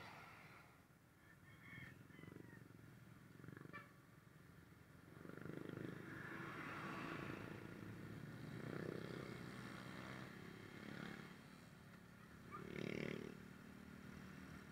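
Motorcycle engine running while riding in traffic, faint, with road and wind noise that grows louder about five seconds in and swells again briefly near the end.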